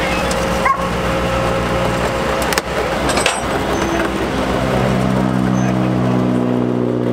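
Flatbed tow truck's engine running with a steady low throb while a wrecked car is winched up the tilted bed. A steady hum of several tones joins a little past halfway.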